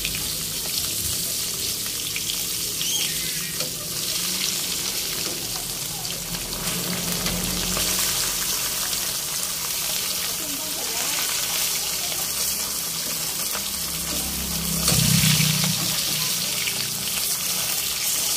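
Whole round scad (galunggong) frying in hot oil in a wok: a steady sizzle with fine crackle, briefly louder about fifteen seconds in.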